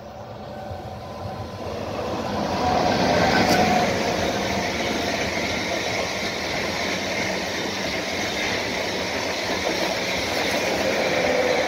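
Renfe Alvia S730 passenger train passing close at speed. A rush of wheel and air noise builds over the first three or four seconds, then holds steady as the long rake of coaches goes by. There is a sharp click about three and a half seconds in.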